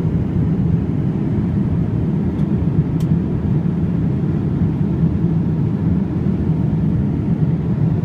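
Steady cabin noise inside a Boeing 787-8 airliner in cruise: an even, low rumble of airflow and engines.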